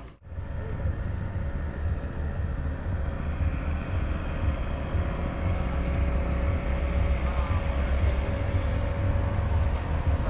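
Steady low rumble of a running vehicle, with a faint steady hum over it.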